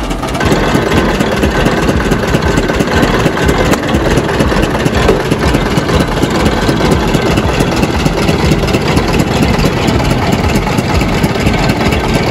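Motor-driven sugarcane juice crusher running steadily while cane stalks are fed through its rollers.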